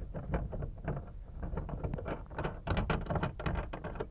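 Small irregular clicks and knocks of copper pipe and fittings being handled and seated on a shower valve, busiest about two to three seconds in, over a steady low rumble.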